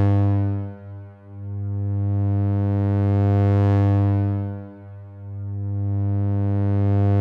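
Sawtooth drone from a Make Noise DPO oscillator at a steady low pitch, rising and falling in loudness and brightness as a slow Maths cycle opens and closes the Optimix low-pass gate. It dips briefly about a second in and again near five seconds, swelling brighter in between, about every four seconds.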